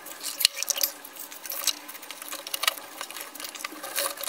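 Irregular clicks, knocks and short scrapes of loose wooden boards and a glass box being shifted and wedged on a wooden workbench.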